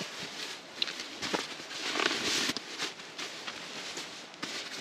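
Irregular rustling and crinkling with a few light knocks, as of nylon camping gear being handled, loudest about two seconds in.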